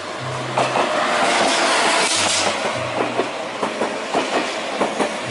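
Thalys high-speed train passing along a station platform. A rush of air and wheel noise swells over the first two seconds, then a run of clicks, about three a second, as the wheels cross rail joints.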